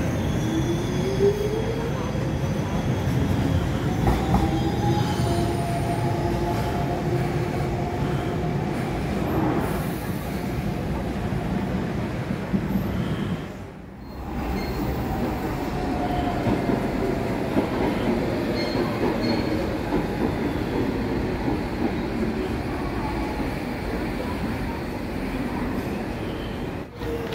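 Docklands Light Railway trains: an electric motor whine rises as a train pulls away close by, then runs steady over the rumble of wheels on track. About halfway the sound drops out briefly, and after it another train's whine falls as it slows.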